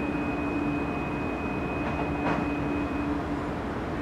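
Steady low rumble of a large LNG-powered container ship's engines and machinery passing close by, with a constant hum and a thin high whine that stops about three seconds in.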